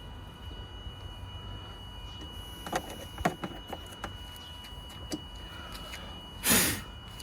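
Scattered light clicks and knocks of the MAF sensor and intake pipe being handled and refitted on a Lexus GS300's 2JZ engine, with a short loud burst of noise near the end. A faint steady high whine runs underneath.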